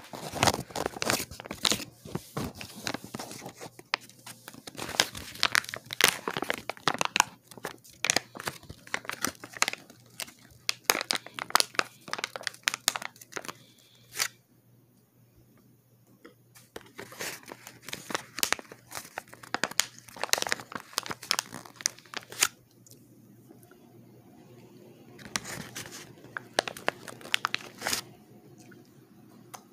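Candy packaging being crinkled and torn close to the microphone, in dense irregular crackling runs broken by two short pauses, about 14 s and 23 s in.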